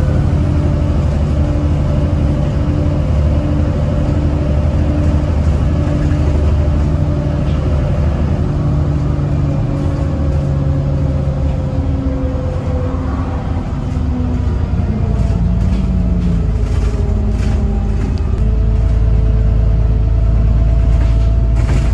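VDL DB300 double-decker bus engine and drivetrain running under way, heard from the passenger saloon. The engine note drifts slowly down, then in the second half a deeper low rumble comes in as the bus pulls on again.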